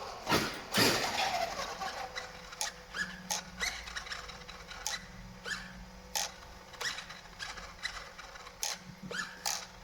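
RC truck's steering servo moving in short whirring bursts with clicks and brief rising chirps, the servo shaking rather than holding still, over a faint steady hum from the powered-up electronics.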